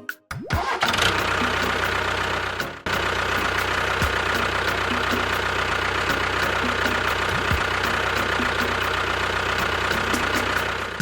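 A small motor or engine running steadily, with a brief break about three seconds in.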